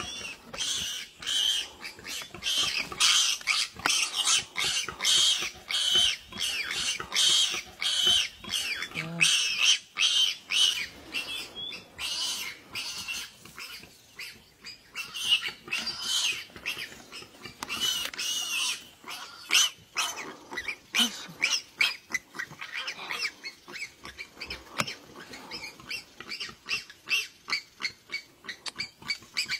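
Repeated high-pitched distress cries of a small prey animal held in a leopard's jaws, coming in quick series one after another; the animal is still alive and dying.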